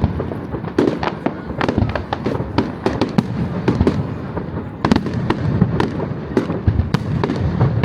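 Fireworks display going off: a rapid, irregular string of bangs and crackles, several a second, over a continuous rumble of distant explosions echoing back.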